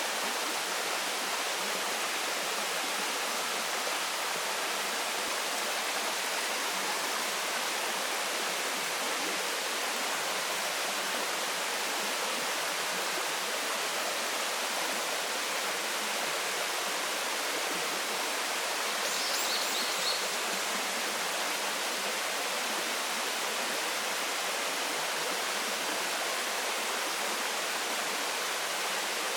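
Waterfall: water falling and rushing in a steady, unbroken wash of sound. About two-thirds of the way through there are a few brief high chirps.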